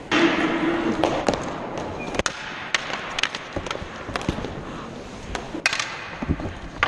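Floor hockey play on a hard gym floor: irregular sharp clacks and taps of sticks and puck on the floor and against the goalie's pads, about a dozen knocks, with a noisy scuffle right at the start.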